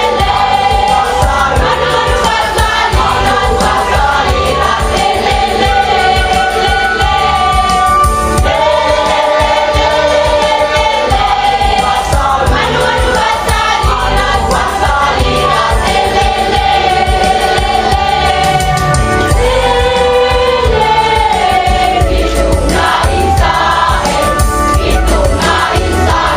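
A high-school choir singing in harmony, with long held notes that move between pitches.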